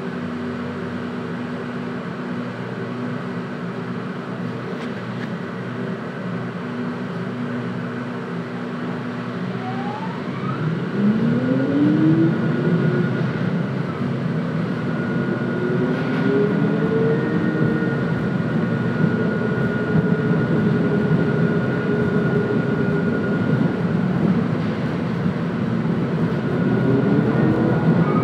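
Onboard a new Hitachi Rail tram: a steady electrical hum while it stands. About ten seconds in, the traction motors start to whine, rising in pitch as the tram pulls away and gets louder with running noise. Near the end a second rising whine comes as it accelerates again.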